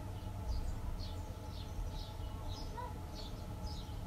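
Small songbirds chirping in short, quick calls, a few each second, over a steady low rumble.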